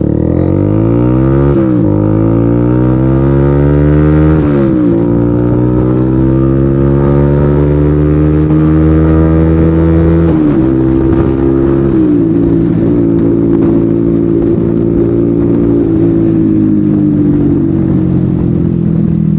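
Bajaj Pulsar 150's single-cylinder engine through an aftermarket SC Project-style slip-on exhaust, loud, as the bike accelerates through the gears. The pitch climbs and drops sharply at each shift, three times in the first ten seconds. After that it runs steadier at speed, with a few brief dips.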